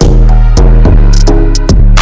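Loud electronic backing music with a heavy bass line and a drum-machine beat at about two strokes a second.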